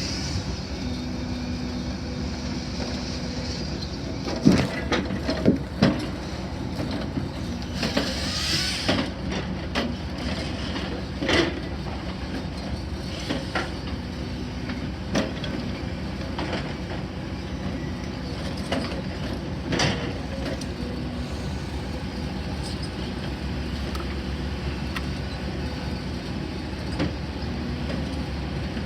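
A steady low motor drone with a faint held hum, broken by scattered sharp knocks and clanks, most of them in the first two-thirds.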